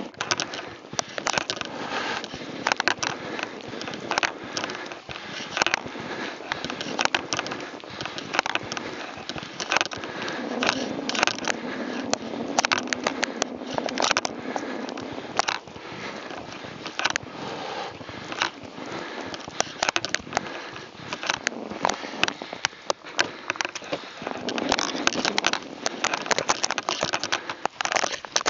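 Mountain bike riding through fresh snow: tyres crunching and the bike rattling, heard as many irregular sharp clicks and crackles over a steady rolling noise.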